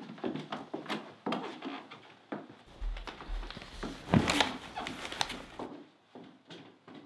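Irregular scuffling footsteps and knocks in a small room, the loudest thump about four seconds in, with the movement tailing off near the end.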